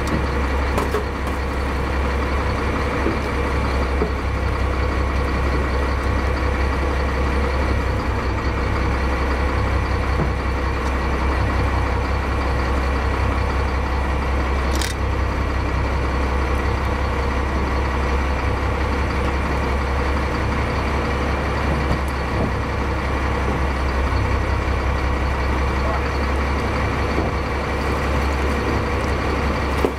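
Crab boat's inboard engine running steadily at low speed with a constant low rumble and hum.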